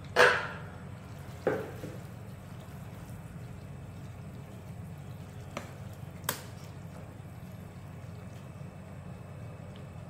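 Metal ladle stirring soup thick with leafy greens in a stainless steel pot. There are two louder knocks or sloshes near the start and two light taps on the pot about six seconds in, over a steady low hum.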